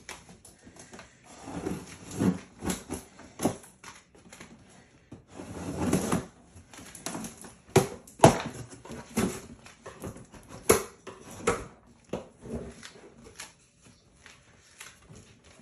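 A knife slitting the packing tape on a cardboard printer box and the top flaps being pulled open. It gives a run of cardboard scrapes and rustles with sharp snaps and clicks, the scrapes strongest in the first half and the sharpest snaps in the second.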